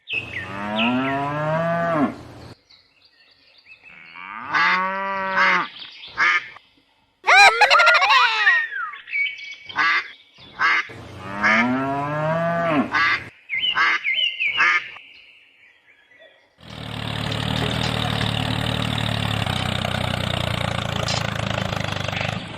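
Farm animals calling, cattle mooing among them: a series of long, drawn-out calls that rise and fall in pitch, with a few shorter, higher calls between them. About three quarters of the way through, the calls give way to a steady machine noise that holds to the end.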